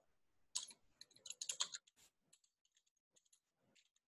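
Faint computer keyboard typing: a quick run of keystrokes in the first two seconds, then fewer, lighter taps.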